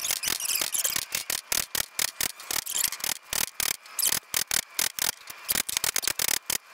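Rapid, light hammer taps, several a second, on the old spring seat set over the new M Performance height-adjustable suspension collar, driving the collar down the strut body.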